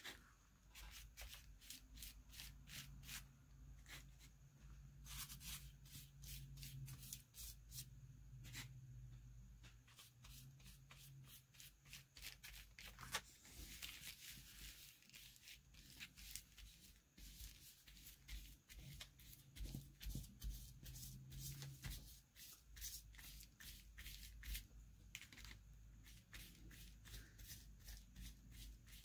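Faint, repeated short brushing and paper-rustling strokes as a flat paintbrush spreads decoupage glue over a paper sheet and hands smooth it down.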